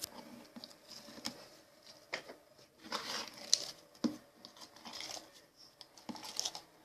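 Soft slime being pulled and scooped by hand out of its container: irregular crackles and squelches, a burst at a time. The slime is sticking and hard to get out.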